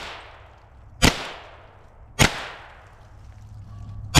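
.22 rimfire gun firing single shots, two about a second apart and a third at the very end, each a sharp crack with a short echoing tail.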